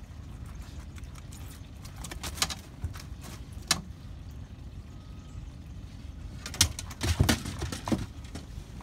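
Sharp knocks and clatters from a landing net's metal hoop and handle being handled against the boat while a fish is worked out of the mesh, a few at a time, with a cluster near the end, over a steady low rumble.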